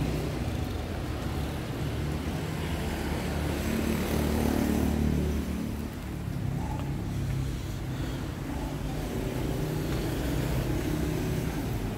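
Motor vehicles and road traffic: a steady low engine rumble, louder in the first half and dropping about six seconds in.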